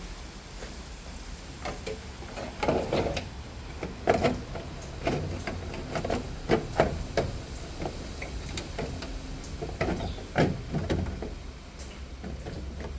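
Boot carpet being pushed and fitted into a car's boot: irregular rustling, bumps and knocks of the trim being handled into place, over a steady low hum.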